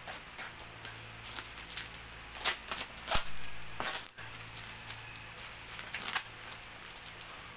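Fingers picking and scratching at the taped edge of a cardboard courier box and its plastic pouch, feeling for the opening flap: a scatter of crackles and clicks, thickest in the middle.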